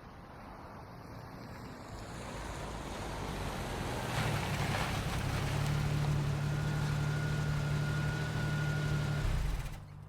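Car engine and road noise growing louder over about four seconds, then a steady engine drone with a faint high whine, cutting off suddenly near the end.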